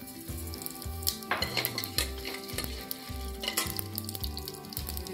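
Black mustard seeds and whole spices sizzling and popping in hot desi ghee in a steel pot, with a steel ladle stirring: the tempering (tadka) stage. The popping grows busier about a second in.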